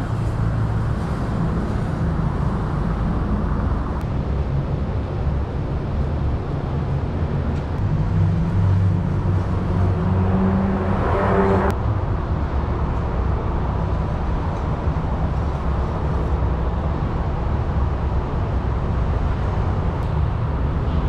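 Steady rumble of road traffic and vehicle engines. About halfway through, an engine grows louder and then cuts off suddenly.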